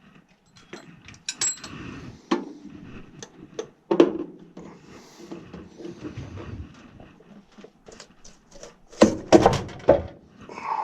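Hand work on furnace parts: an irregular run of clicks, knocks and scrapes from plastic and metal pieces being handled, with a cluster of louder knocks about nine seconds in.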